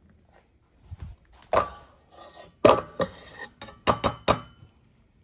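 Metal cookware clanking as drained pasta is handled in a colander and cooking pot: a run of sharp clanks and knocks, the loudest two about a second and a half and two and a half seconds in, ending just after four seconds in.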